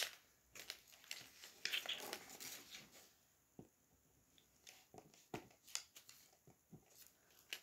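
Faint handling noises: a sharp click at the very start, a brief rustle around two seconds in, then scattered light clicks and taps.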